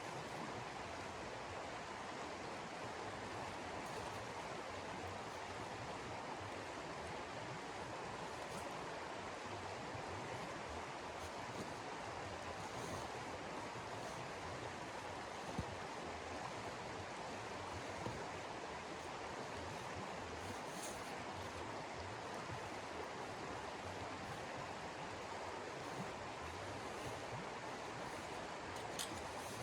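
Steady rushing noise, with a few faint clicks scattered through it.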